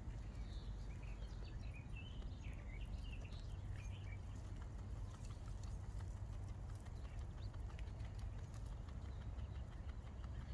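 Grey rabbit chewing grass, faint rapid crunching clicks, over a steady low rumble. A few short high chirps come in the first few seconds.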